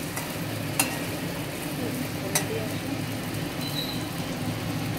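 A plastic spatula stirring dry fish frying in a steel wok, with a steady sizzle and a low hum underneath. Two sharp knocks of the spatula against the pan stand out, about a second in and again a second and a half later.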